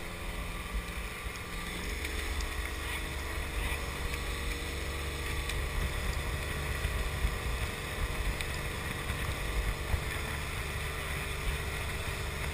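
Tow boat's engine running steadily under way, with wind and the rush of water from the wake; the engine note shifts about two seconds in and then holds steady.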